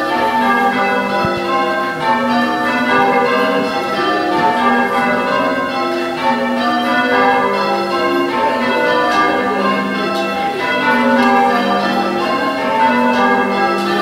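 Change ringing on a ring of six church bells: the bells strike one after another in a steady, continuous succession, their tones overlapping and ringing on.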